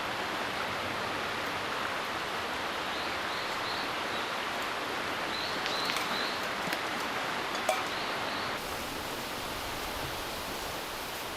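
Steady rushing of strong wind through the trees, with a few faint, short high chirps.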